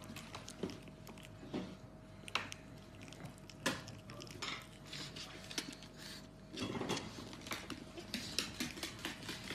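Pug puppies play-fighting on a hardwood floor: irregular light clicks and scuffles of paws and claws on the wood, with a brief louder scuffle about two-thirds of the way in, over a faint steady hum.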